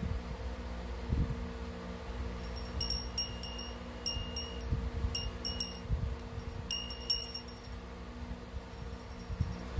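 Small cylindrical metal bell on a chain, shaken by an eclectus parrot with its beak: bursts of quick, high jingling rings in several clusters from about two and a half to seven and a half seconds in.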